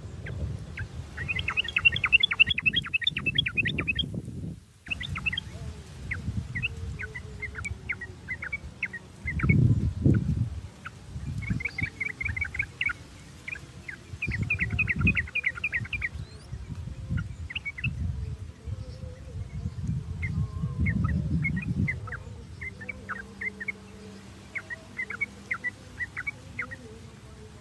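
Yellow-vented bulbuls calling: runs of quick, short chattering notes repeated in bursts, with the densest runs in the first few seconds and again around the middle. Irregular low rumbling comes and goes underneath, loudest about ten seconds in and again near two-thirds through.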